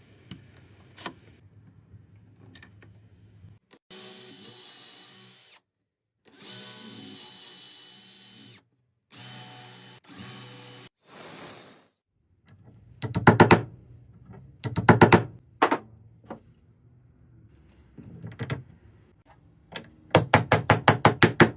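Electric drill running in several bursts of a couple of seconds each, boring into wood. Later come loud clusters of rapid knocking, several strokes a second, the loudest run near the end.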